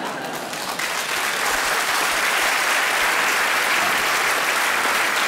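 Studio audience applauding, swelling about a second in and holding steady.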